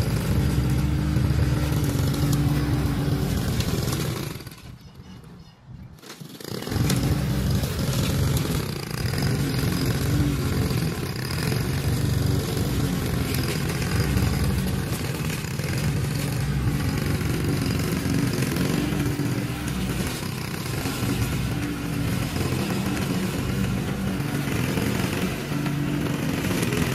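Honda gas walk-behind lawn mower running steadily while cutting through tall, thick grass. The sound fades out briefly about five seconds in, then the engine is back at the same steady level.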